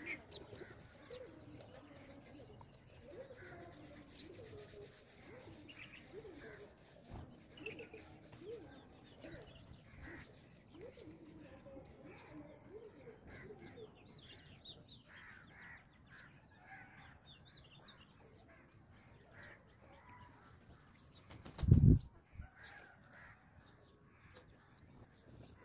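House sparrows chirping, with lower bird calls mixed in during the first half, and a single loud low thump near the end.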